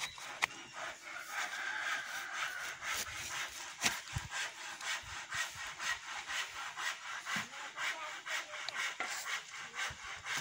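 Rhythmic scraping and rubbing against the rough, fibrous trunk of a kithul palm while it is being climbed, about three strokes a second.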